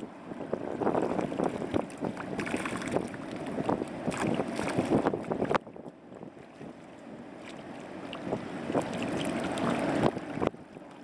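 Wind buffeting the microphone in uneven gusts, with a crackling, rushing noise that drops off suddenly about halfway through and then builds up again.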